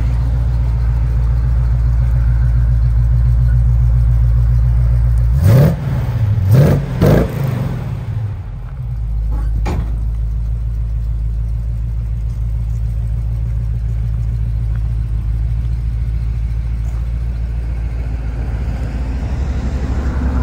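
1980 Chevrolet K10 pickup's engine idling steadily, then blipped a few quick times about five and a half to seven and a half seconds in, each rev rising and falling sharply before it settles back to idle.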